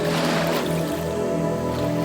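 Soft, slow relaxation music of long held tones over the wash of ocean waves; a wave swells and breaks just as it begins, then ebbs.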